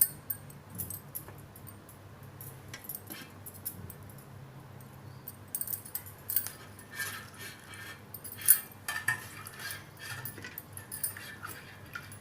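Kitchen utensils being handled: scattered light clinks and rattles of metal dishes, busier in the second half.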